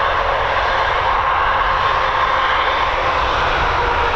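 Jet aircraft engines running steadily: an even rushing noise with a faint steady whine.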